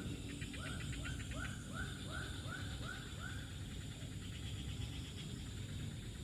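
An animal calling in a quick run of about nine short, arched calls, about three a second, that stops about halfway through, over a steady low rumble.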